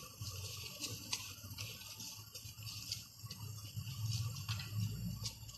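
Thin dry roti being torn by hand into bite-sized pieces, an irregular run of light crackles and rustles as the brittle bread breaks, over a low steady hum.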